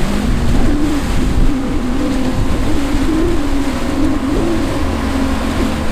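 Single Johnson 200 outboard motor running hard through rough standing waves, its engine note wavering up and down, over the rush of churning water.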